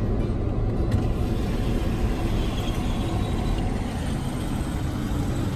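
Vehicle in motion heard from inside its cabin: a steady low rumble of engine and road noise, with a single short click about a second in.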